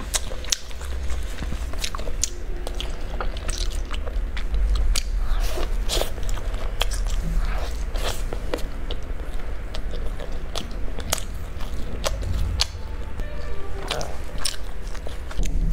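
Close-miked biting and chewing of fried dough sticks (youtiao) dipped in spicy soup: a steady run of sharp crunches and mouth sounds.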